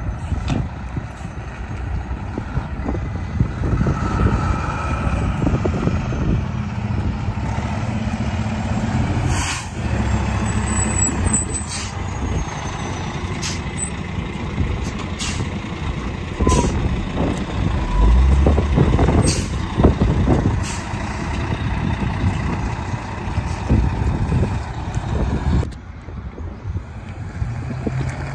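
Fire engine's diesel engine running as the truck rolls slowly past close by, with several short air-brake hisses.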